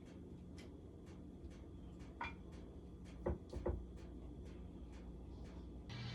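A few faint light knocks, about two, three and three and a half seconds in, over a steady low hum. Music starts near the end.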